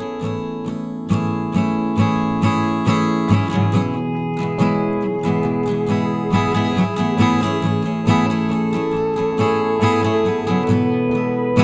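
Background music: acoustic guitar strumming at an even, unhurried pace.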